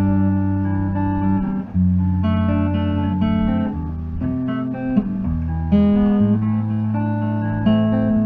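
Guitar played clean through a Big White Monkey Mark 1 'Chimp' 5-watt Class A tube amplifier head (two EL84 and three ECC83 tubes): chords are struck and left to ring, with a new chord every second or two.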